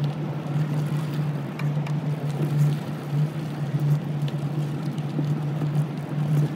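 Steady low hum of a small electric motor on a vehicle riding a dirt trail, pulsing slightly, with scattered light ticks and crackles from the trail surface.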